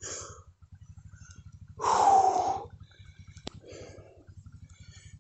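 A motorcycle engine idling with an even, rapid low putter, and one loud shout about two seconds in that lasts under a second.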